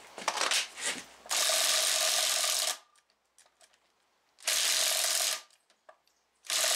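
Cordless impact wrench hammering on a camshaft sprocket bolt of a 3.5-litre five-cylinder engine in three bursts, trying to break the bolt loose, after a few light clicks.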